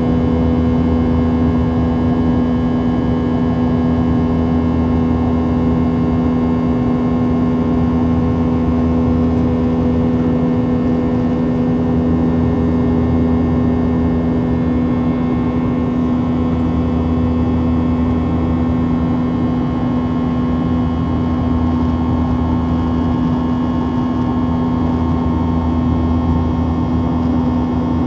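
Boeing 737-700 passenger cabin over the wing: the CFM56-7B turbofans' steady drone, with a constant low hum and faint steady whining tones above it.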